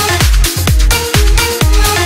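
Electronic dance music backing track with a steady beat of about two beats a second.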